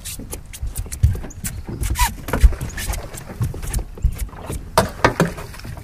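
Irregular knocks and thumps on a fishing boat's deck from people moving about and handling gear, the loudest about two and a half seconds in.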